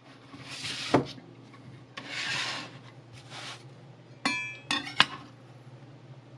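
Kitchen knife blade drawn across sandpaper on a sharpening block in three scraping strokes, then two sharp metallic clinks that ring briefly.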